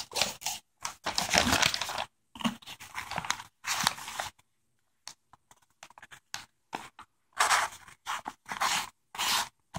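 Sharp knife blade slicing through brown kraft packing paper to test its edge: a run of short papery rasps and crinkles, with a quiet stretch of about three seconds in the middle.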